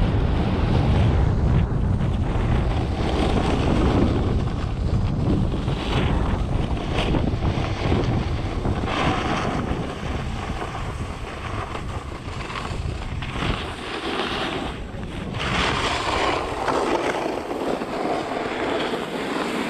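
Wind buffeting an action camera's microphone during a snowboard run, with the hiss and scrape of the board's edges on packed snow swelling and fading as it carves. The wind rumble is heaviest in the first half and eases after about ten seconds.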